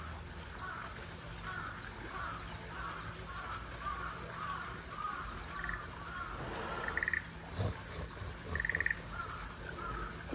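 Frogs calling in a steady chorus of short calls repeating about twice a second, with a few louder, harsh, buzzy calls in the second half.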